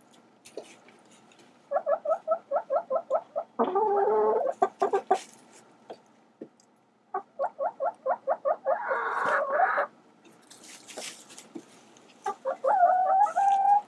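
Domestic hens cackling. Twice comes a quick run of short clucks, about seven a second, ending in a long, loud, drawn-out squawk, and another drawn-out call comes near the end.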